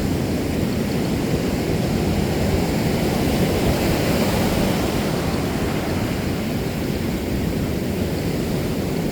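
Ocean surf washing onto a beach, with wind on the microphone: a steady rushing noise that swells a little a few seconds in.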